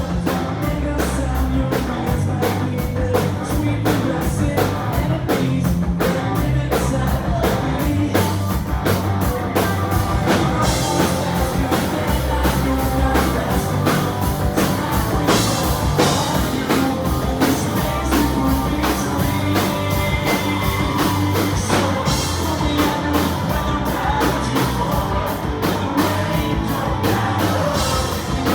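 Live rock band playing a song, with a drum kit, guitar and a lead vocal singing over it.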